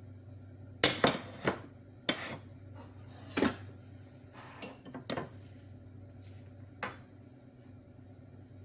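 Kitchen dishes and utensils clinking and clattering as they are handled: a quick cluster of knocks about a second in, then single knocks every second or so until about seven seconds in.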